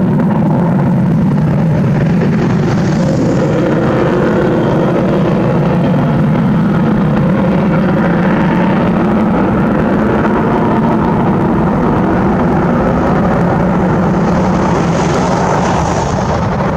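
Su-57 fighter's twin jet engines running at high power during aerobatics: a loud, continuous, rumbling jet roar that grows hissier for a moment about three seconds in and again near the end, when the afterburners are lit.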